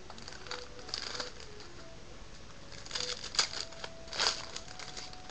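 Trading card packs and cards being handled: short bursts of crinkling and rustling from the wrappers and card stock, loudest about three and four seconds in.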